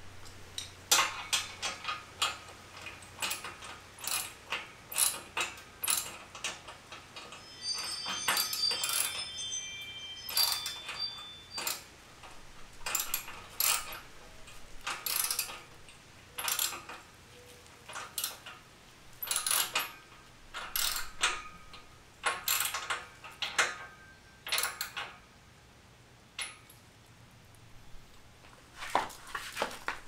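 Ratchet wrench clicking in short repeated bursts as bolts are tightened on a steel dumbbell rack, with a brief metallic ringing about a third of the way in.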